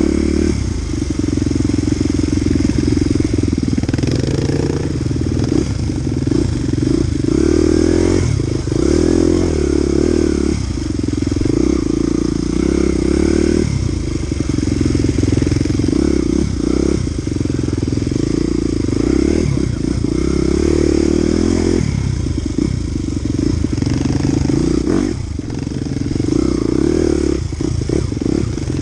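Dirt bike engine heard from on board the bike, its pitch rising and falling again and again as the throttle is opened and closed over a muddy trail.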